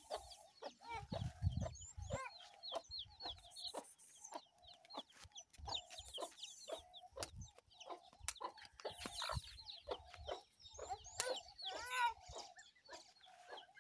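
A brood of young chicks peeping constantly in short high chirps, over a mother hen's steady, repeated low clucking. A brief low rumble comes about a second in.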